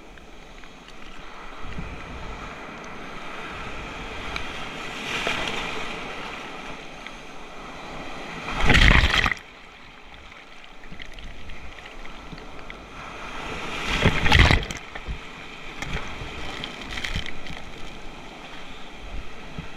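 Ocean waves and sea water washing around, with two loud rushing surges, about nine and fourteen seconds in.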